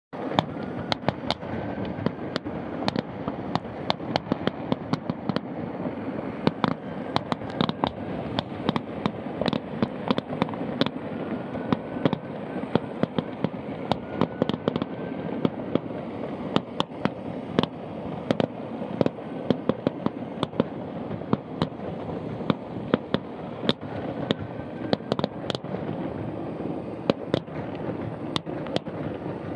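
Fireworks display going off without a break: a dense run of sharp bangs and pops over a constant rumble and crackle.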